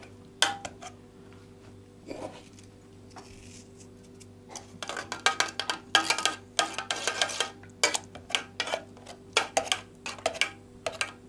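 Dishes and cutlery clinking and knocking in a kitchen: a few scattered clicks at first, then a busy run of clatter from about four and a half seconds in, with more near the end. A faint steady hum runs underneath.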